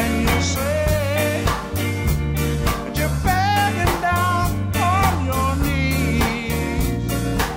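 Rock band rehearsing a blues-tinged song: drum kit keeping a steady beat under bass guitar and sustained Hammond organ chords, with a wavering lead line over the top.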